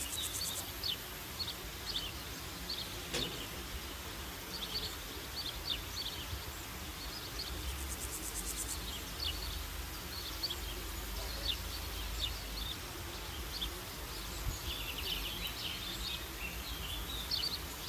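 Forest birdsong ambience: many birds giving short, high chirps and calls throughout, thickest about fifteen seconds in. A fast, very high trill comes near the start and again about halfway, over a faint low rumble. A single click sounds about three seconds in.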